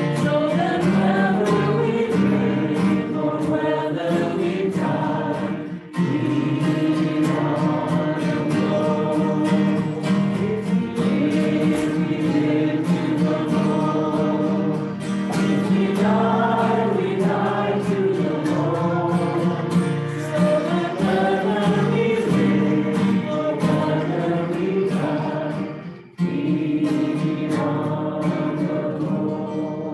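A congregation singing a hymn together in unison, with brief breaks between phrases about six seconds in and again near the end.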